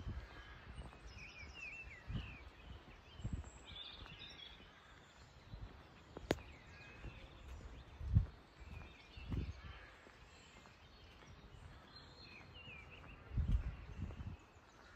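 Small songbirds chirping and trilling in short scattered phrases. Irregular low rumbles break in every few seconds and are the loudest sounds, with a single sharp click about six seconds in.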